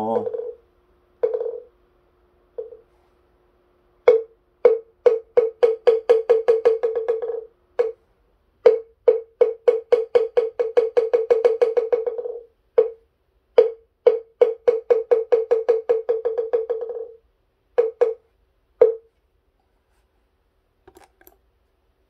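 Korean moktak (wooden fish) being struck. It starts with a few single knocks, then plays three fast rolls whose strikes quicken and fade, and ends with two last single knocks: the closing roll that ends the chant after the dedication verse.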